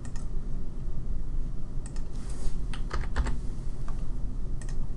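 Computer keyboard and mouse clicking: a few short keystrokes and clicks, bunched in the middle with a pair near the end, over a steady low background hum.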